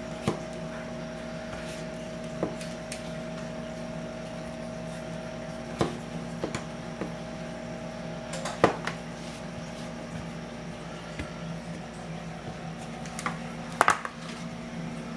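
A fork clicking and tapping against a metal baking sheet as cookie dough is pressed flat: scattered sharp clicks, the loudest about two-thirds of the way in and again near the end, over a steady electrical hum.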